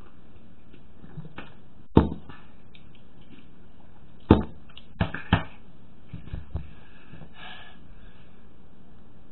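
Several short, sharp knocks over a steady hiss: a loud one about two seconds in, another just past four seconds, then a quick pair about five seconds in, with a few fainter ticks after.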